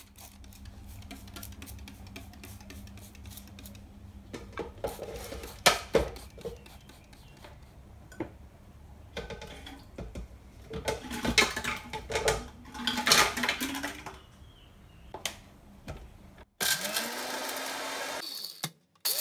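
Scattered plastic clicks, knocks and hissy squirts as hands work a trigger spray bottle and handle a blender jar. About three-quarters of the way through, a countertop blender's motor starts, rising in pitch as it spins up, and runs steadily grinding eggshells under a hand-held lid.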